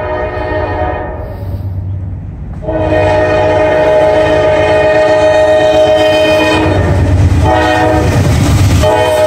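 Norfolk Southern diesel locomotive's air horn sounding a chord of several notes in separate blasts as the train approaches: a blast fading out in the first second and a half, a short pause, a long loud blast of about four seconds, a shorter one, another pause, and a new blast near the end. The locomotive's low engine rumble runs underneath.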